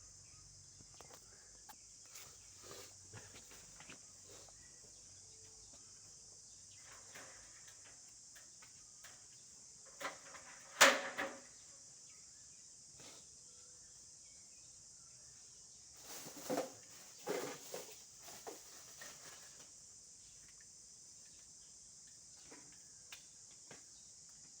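Steady high-pitched insect buzzing, with scattered knocks and clatter from work on the conduit run. The loudest knocks come about eleven seconds in and again around sixteen to nineteen seconds in.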